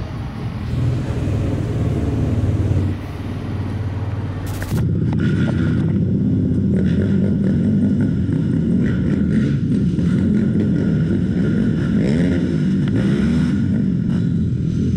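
Quad bike engines running, then, from about five seconds in, the close single-cylinder four-stroke engine of a KTM 450 SX ATV, its pitch rising and falling as the throttle is worked, with other quads running nearby.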